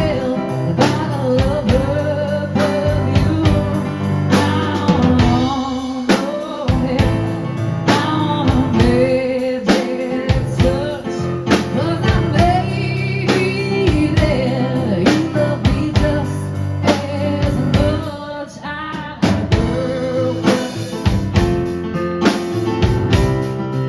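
Live country ballad: a woman singing over guitar, bass and a steady drum beat, with a brief quieter dip about three quarters of the way through.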